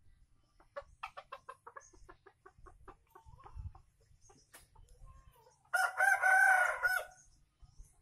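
Red junglefowl rooster clucking in a quick run of short notes, then crowing once near the end: a single short crow of about a second, the loudest sound here.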